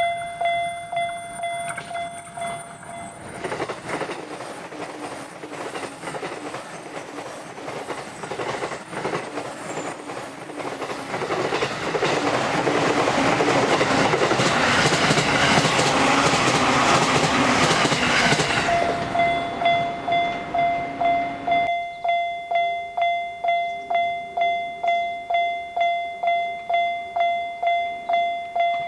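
Japanese level-crossing warning bell ringing its steady kan-kan about twice a second. About three seconds in, a JR Sobu Line electric train passes, and its wheels clatter over the rails for some fifteen seconds, drowning out the bell. The bell then rings on alone.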